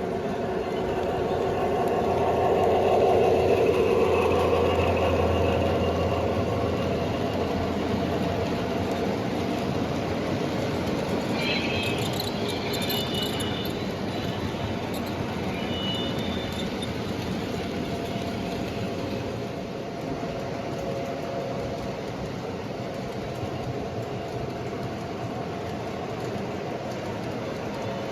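Model train running around the layout track, a steady rolling rumble that swells as it passes close about three seconds in and then eases off. Brief high wheel squeals and clicks come near the middle, typical of the wheels rounding a curve or crossing track joints.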